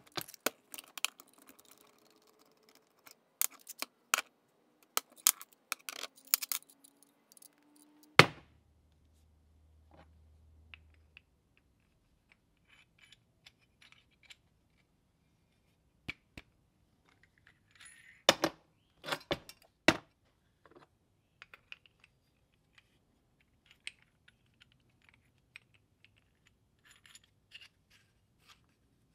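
Aluminium caps and the steel head of a split-head mallet clinking and knocking against a metal plate on a workbench as they are handled and test-fitted. A scatter of sharp clicks leads up to a single loud knock about eight seconds in, with a few more knocks a little after halfway and light clicks near the end.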